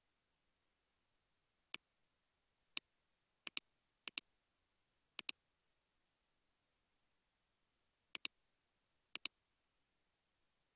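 Computer mouse clicks over near silence: two single clicks, then five quick double clicks spread over the rest of the stretch.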